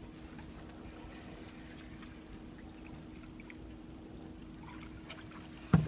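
Steady low hum of a boat at rest on the water, with faint trickling of water and a few light ticks, then a sharp loud knock just before the end.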